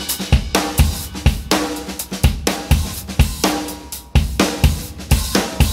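Background music with a steady drum-kit beat, about two hits a second.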